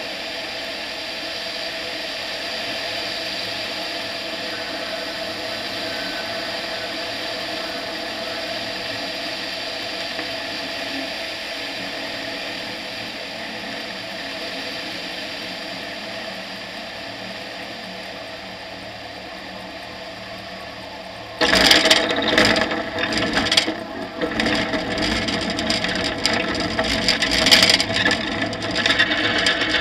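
Tetras ultralight aircraft's engine and propeller running steadily in flight, heard from a camera mounted on the airframe. About two-thirds of the way in, a sudden loud irregular rattling and knocking begins as the wheels touch down and roll over the grass strip, with the engine still running underneath.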